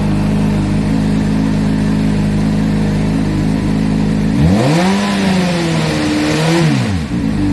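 Honda CBR600F inline-four motorcycle engine through a Dominator exhaust with the baffle removed, idling steadily. About four and a half seconds in it is revved up and held for about two seconds, blipped once more, then drops back to idle.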